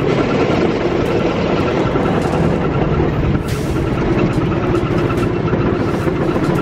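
Small engine of an open vehicle running steadily while driving, with wind rushing over the microphone.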